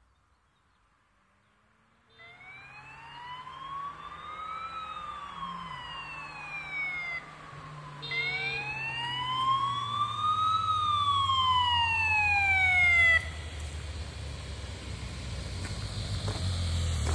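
Wailing siren of an approaching escort vehicle: two slow sweeps, each rising for a couple of seconds and then falling, cutting off abruptly about 13 s in. A motorcycle engine then grows louder as the bike approaches.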